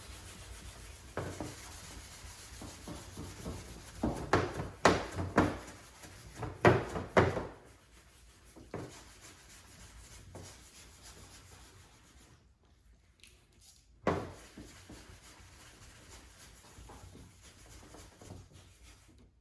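Clay bar rubbed over car paint with detailing spray to lift overspray, a dry rubbing sound with a run of about five short, louder strokes around the middle and one more later.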